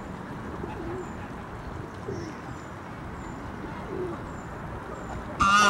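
Soft, low bird calls repeating about once a second over a steady outdoor background hiss, with faint high chirps. Near the end a goose starts honking loudly.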